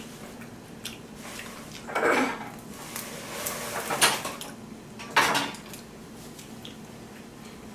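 Tabletop eating noises from a seafood boil: crab shells and dishes handled, with clicks, cracks and a crinkly rustle, and sharper knocks about two, four and five seconds in.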